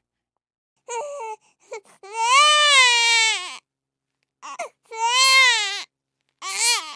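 Baby crying in separate drawn-out wails with short pauses between. After a quiet first second comes a short cry, then two long cries that rise and fall in pitch, and a new cry begins near the end.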